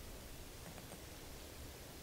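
Carving knife taking small paring cuts on a basswood figure, faint, with a few soft clicks and scrapes about a second in over low background noise.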